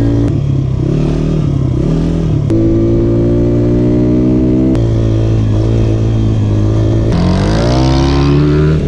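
Pitbike's small single-cylinder engine running while riding, holding a steady pitch and then rising as it accelerates near the end, with sudden jumps in pitch every couple of seconds where the footage is cut.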